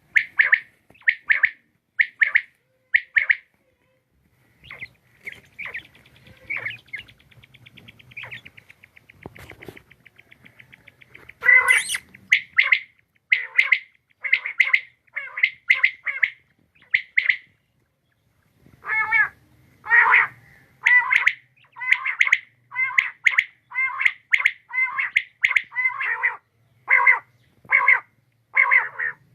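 Quail calling: a series of short, sharp notes repeated about once a second, then a softer rapid trill, then the notes again in a quicker run after a brief pause.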